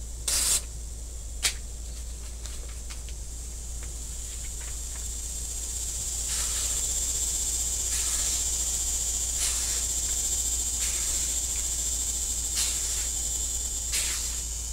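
Freshly sharpened Hanwei 1881 Russian shashka blade slicing through a hand-held sheet of printer paper in a series of short, crisp cuts spaced a second or more apart, the loudest about half a second in; the cuts show how sharp the edge is. A steady high insect drone swells in behind from about six seconds in.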